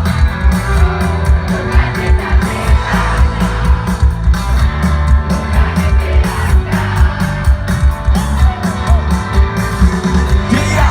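Live rock band playing loudly: a steady drum and bass beat with electric guitar, and voices singing over it.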